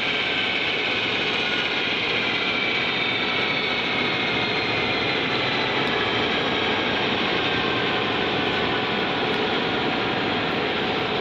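Antonov An-32's Ivchenko AI-20D turboprop engines running at taxi power: a steady high turbine whine over the drone of the propellers, the whine easing slightly lower in pitch.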